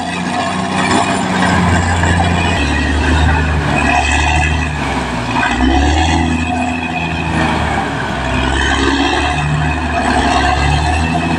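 Caterpillar D6R XL crawler bulldozer running, its diesel engine's pitch shifting every second or so, with wavering higher tones over it.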